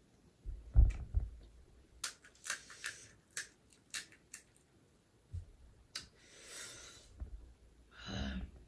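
Crisp, hollow pani puri shells crackling and snapping as fingers break them open, a quick run of sharp cracks. A low thump about a second in is the loudest sound.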